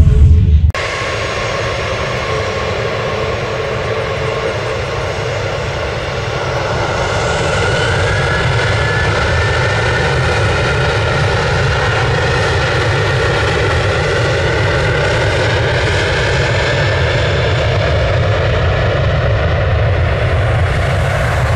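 A Boeing 737-700's CFM56-7B turbofan engines running during the takeoff roll: a loud, steady jet noise with whining tones. It grows louder about a third of the way in as a whine rises in pitch. Intro music cuts off under a second in, just before the jet noise starts.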